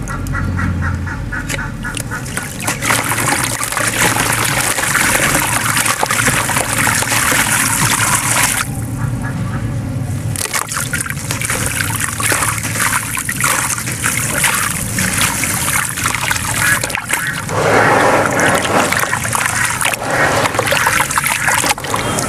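Water sloshing and splashing in a plastic tub as dry grey powder is poured in and hands stir the watery slurry: continuous wet swishing and dribbling with irregular splashes.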